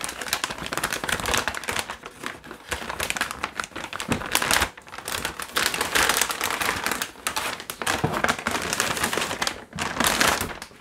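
Motherboard packaging being handled as the board is pulled from its box: continuous crinkling and rustling with many small clicks.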